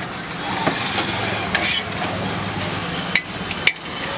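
Egg omelette sizzling on a flat griddle while a metal spatula scrapes and taps against the pan as it folds the egg over the bread. There are a few sharp clacks, and the loudest comes near the end.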